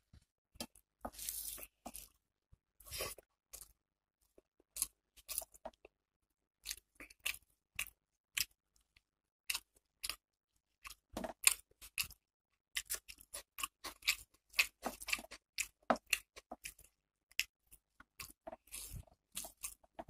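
Close-up sounds of eating rice and curry by hand: chewing with many short, wet clicks, coming in irregular runs with short pauses between them.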